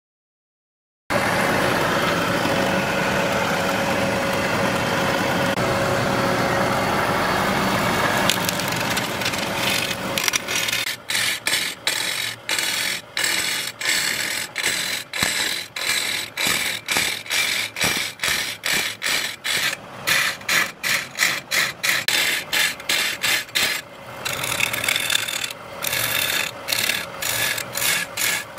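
Wood lathe turning a wooden blank while a hand-held chisel cuts into it, scraping and shaving the spinning wood. The sound starts abruptly about a second in as one continuous cut, and about a third of the way through breaks into quick repeated passes, about two a second, with short gaps between them.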